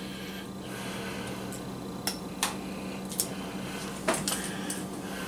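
A handful of scattered light knocks and clicks of dishes and utensils being handled on a kitchen counter, over a steady low hum.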